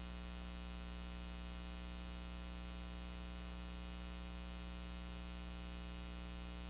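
Steady low electrical hum: an unchanging buzz made of many evenly spaced overtones.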